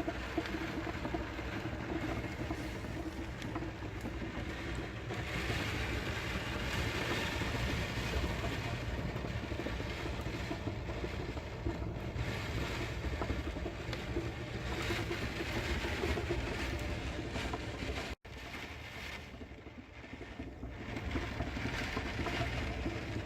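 Typhoon wind and heavy rain, a continuous rushing noise that swells and eases in gusts. It cuts out for an instant about 18 seconds in, comes back quieter, and builds again.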